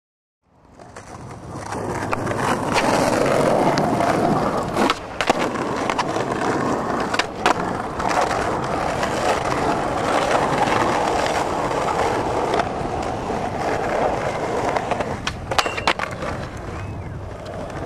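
Skateboard wheels rolling steadily over pavement, fading in from silence in the first second. Sharp clacks of the board hitting the ground come about five and seven seconds in, and a couple more about sixteen seconds in.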